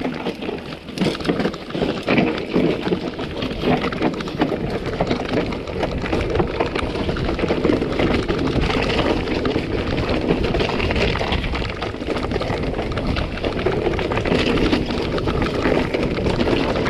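Mountain bike riding over rough trail: tyres crunching over stones, and the bike rattling with a continuous stream of small knocks and clicks.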